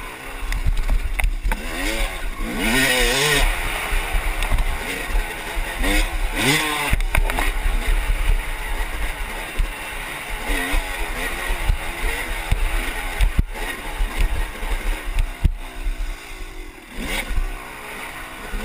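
Yamaha dirt bike engine revving up and down repeatedly as the bike is ridden along a trail, with wind rumbling on the microphone.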